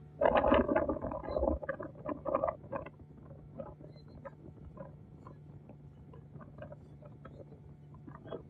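Water splashing and slapping against a moving boat's hull, loudest and most broken up in the first three seconds, then smaller irregular splashes over a steady low hum.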